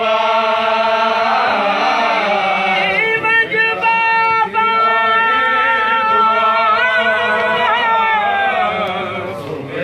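Voices chanting a Sindhi noha lament, drawing out long, wavering melodic notes with no clear words between lines of the refrain. The held notes fade slightly near the end.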